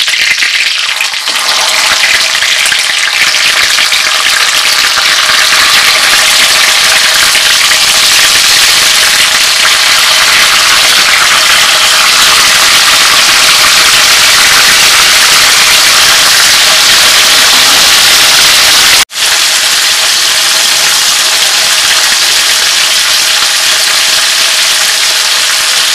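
Green-chilli-marinated chicken leg pieces sizzling in hot oil in a wok: a loud, steady frying hiss, which cuts out briefly about two-thirds of the way through.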